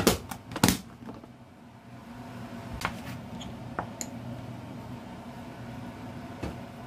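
Snap-on plastic lid pressed onto a food storage tub, its latches clicking shut several times in the first second. After that a steady low hum, with a few faint clicks of things handled on the table.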